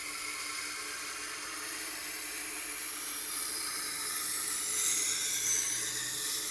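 Steel knife blade being ground on a motor-driven sharpening wheel during reprofiling: a steady grinding hiss over the low, even hum of the wheel's motor.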